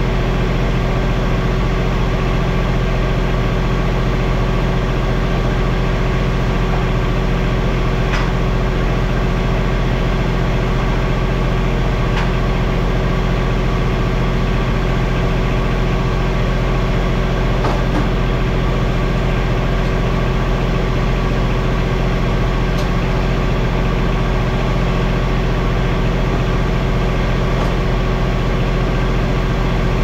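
Bobcat MT100 mini skid steer's engine running steadily at an unchanging speed, with a few faint clicks.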